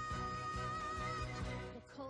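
Background instrumental music with long held notes over a low pulse.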